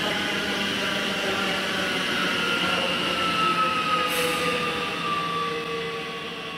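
Bombardier Talent 3 electric multiple unit running past on the rails, with a whine from its electric traction drive that slowly falls in pitch. It fades a little toward the end.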